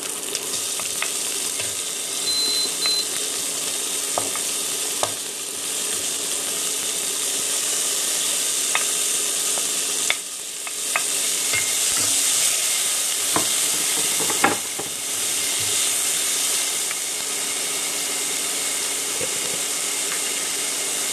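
Chopped onion frying in hot olive oil in a Dutch oven, with a steady sizzle and occasional knocks of a wooden spoon.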